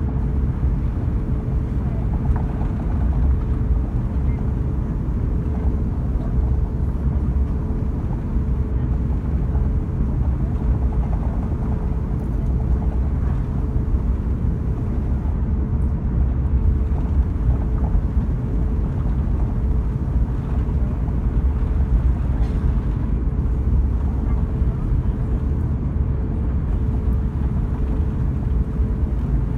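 Cabin noise of an Airbus A350 taxiing: a steady low rumble from its Rolls-Royce Trent XWB engines at low taxi power, with a steady mid-pitched hum running through it, heard from inside the passenger cabin.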